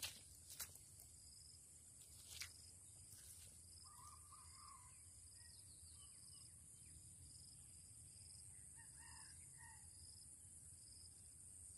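Near-silent outdoor ambience: a steady high insect drone with a pulsing chirp, a few faint clicks in the first seconds, and a faint, distant rooster crowing about four seconds in and again near nine seconds.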